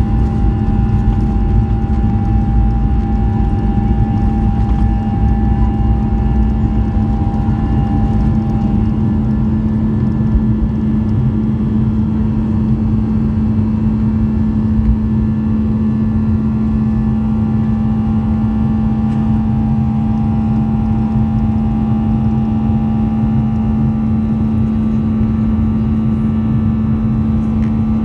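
Boeing 737-800's CFM56-7 turbofan engines at takeoff and climb thrust, heard inside the cabin at a window seat over the wing: a loud, steady roar with a constant low hum. The deepest rumble eases about ten seconds in as the jet climbs away.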